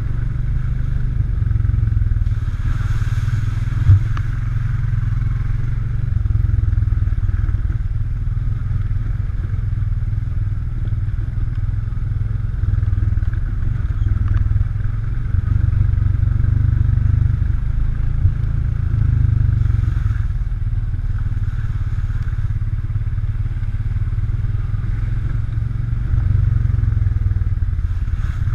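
ATV engine running steadily under way, its level swelling and easing every few seconds, with a sharp knock about four seconds in and another past the middle.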